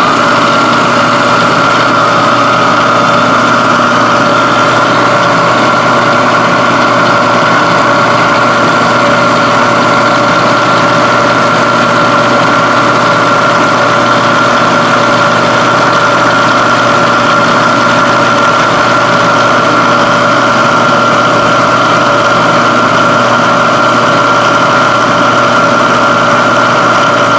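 Bridgeport Series I vertical mill running steadily with a loud, even whine, most likely its spindle turning at speed.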